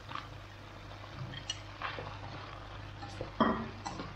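Blanched broccoli florets tipped into a metal wok of king oyster mushrooms, then stirred with chopsticks: scattered clinks and knocks against the pan, the loudest about three and a half seconds in, over a low steady hum.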